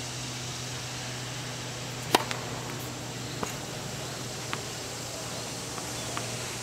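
A tennis racket strikes the ball on a serve with one sharp pop about two seconds in, followed by a few fainter knocks of the ball landing and bouncing, over a steady low hum.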